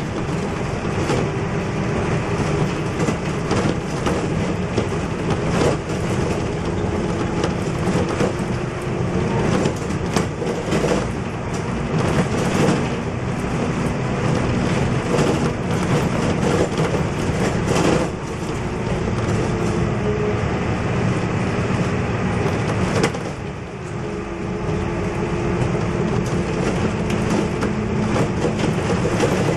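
Inside a MAN NL222 city bus under way: its rear-mounted six-cylinder diesel engine running steadily with heavy road noise, and frequent rattles and knocks from the bus body over a patched, bumpy road.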